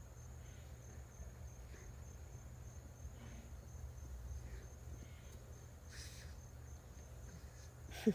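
Faint, steady high-pitched trill of insects, typical of crickets, over a low steady rumble, with a brief sharp sound at the very end.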